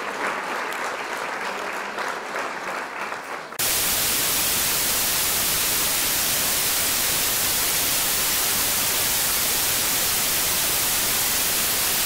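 A crackling, applause-like patter fades over the first few seconds. About three and a half seconds in it switches abruptly to loud, steady static hiss, like white noise, which holds unchanged.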